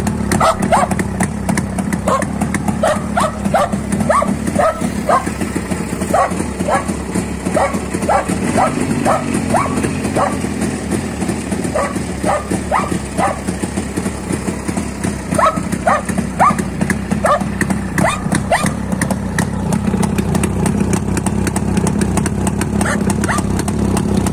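Jawa 350 TS (type 638) two-stroke twin-cylinder engine idling steadily through its twin silencers. A dog barks repeatedly over it in runs of short barks.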